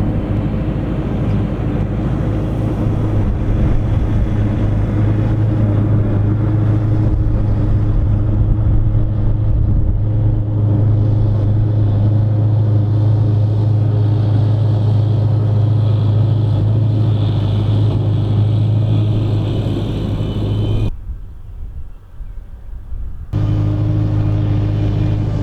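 Massey Ferguson 6470 tractor and Fendt big baler working, a loud steady deep engine drone with no change in pitch. The sound cuts out abruptly for about two seconds near the end, then the same drone comes back.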